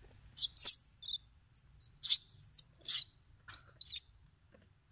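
Newborn long-tailed macaque squealing: a string of about ten short, very high-pitched squeaks and cries, several sliding up and down in pitch, the loudest near the start, stopping about four seconds in.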